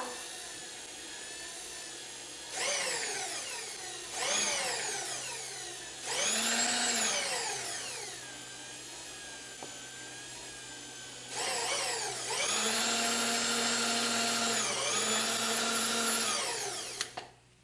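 Small electric motor whining up to speed, holding, and winding down several times, the longest run near the end, typical of a milling machine's table power feed moving the table back and forth.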